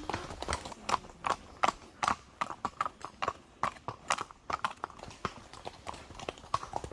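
Horse hooves clip-clopping at a walk: an uneven run of sharp hoof strikes, several a second.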